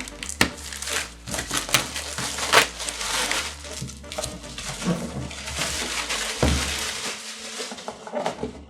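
Packaging being handled while a drawing tablet is unboxed: crinkling and rustling with scattered clicks and a few knocks.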